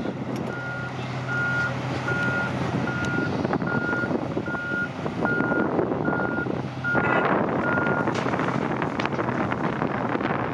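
A reversing alarm beeping steadily, about ten beeps at a little under one a second, over the running diesel engines of a Hitachi Zaxis 520 excavator and a Komatsu HM400 dump truck. About seven seconds in, a sudden louder rush of noise comes as the bucket of earth is emptied into the truck's body, and the beeping stops soon after.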